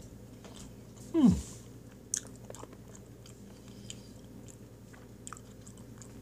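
Close-miked chewing of soft tiramisu cake, with small wet mouth clicks. About a second in there is a short, loud sound that drops quickly in pitch.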